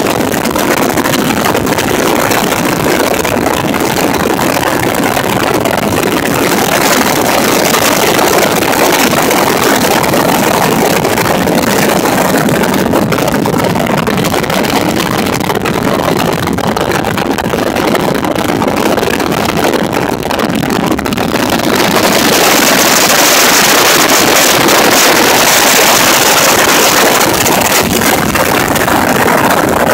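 Bass Cat bass boat running under outboard power: a steady rush of wind on the microphone and water along the hull over the engine. About two-thirds of the way through the rush grows louder and hissier.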